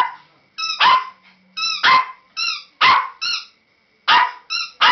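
Small Chinese crested dog barking repeatedly, about once a second, each sharp bark paired with a higher, shorter yip.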